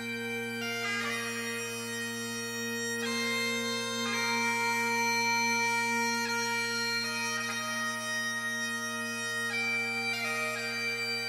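Bagpipes playing a slow tune: a steady drone holds underneath while the melody moves from note to note every second or two.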